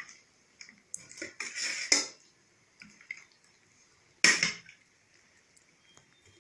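Dry, brittle roqaq pastry sheets crackling and rustling as they are handled and laid in a baking tray. There are a few short bursts, the loudest about a second and a half in and again about four seconds in.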